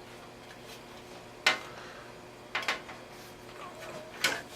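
Hands plugging a SATA data cable into a hard drive inside a computer tower: a few sharp clicks and knocks of plastic and metal, about a second and a half in, near the middle, and near the end.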